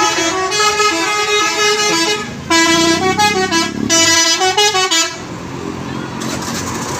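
Bus telolet horn, the multi-tone musical horn of an Indonesian coach, playing a quick stepping melody of several notes. It cuts off about five seconds in, leaving a steady noisy background.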